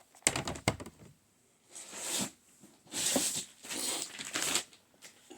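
Handling of hard plastic CGC comic slabs: a few sharp clicks and clacks in the first second, then three bursts of plastic scraping and rustling.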